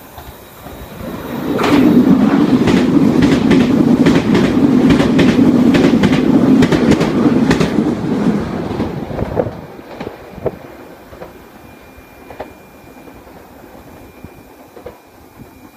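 Meitetsu 2200 series electric train passing through the station at speed without stopping: a loud rumble with a quick run of clacks as its wheels cross rail joints. It builds about a second and a half in and fades after about eight seconds as the train moves away.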